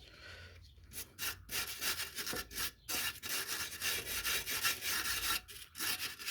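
Repeated scraping and rubbing strokes, with short pauses, as caked debris and dog hair are cleaned off a lawn mower deck.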